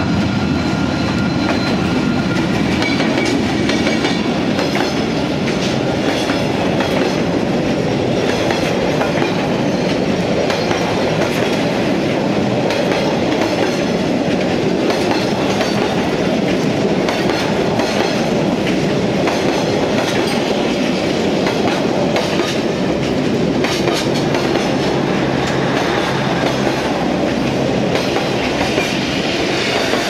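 Diesel-hauled passenger train passing close by: the locomotive goes by first, then coaches and wagons roll past with a steady rumble of wheels on rail and a clickety-clack over the rail joints.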